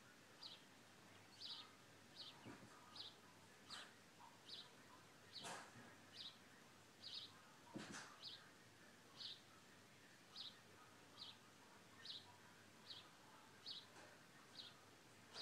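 A bird chirping faintly, one short high call about every three-quarters of a second in an even rhythm. A few brief knocks sound in the first half.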